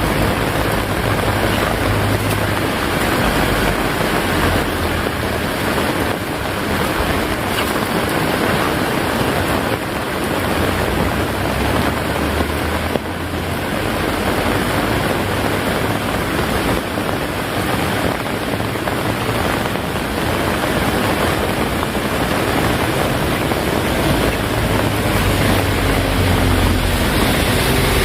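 Heavy rain pouring steadily, a dense unbroken hiss, with a low rumble that swells and fades several times underneath.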